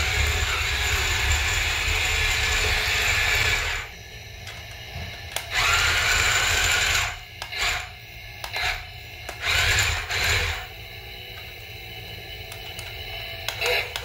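Toy RC tank's small electric drive motors and plastic tracks whirring steadily as it drives across a tile floor, cutting out about four seconds in. This is followed by several short bursts of motor whir over the next few seconds as it is driven in brief spurts.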